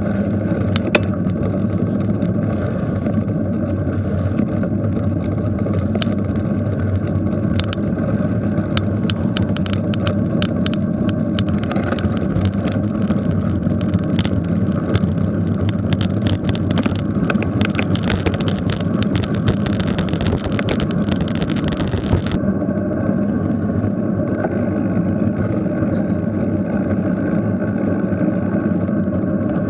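Wind rumble and road noise on a camera riding along on a bicycle, with frequent faint clicks and rattles. The higher hiss drops away suddenly about three-quarters of the way through.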